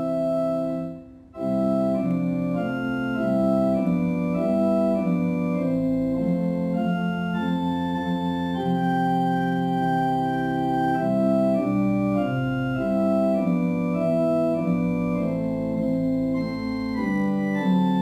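Organ playing a slow hymn tune in held chords, the music of a healing hymn, with a short break about a second in.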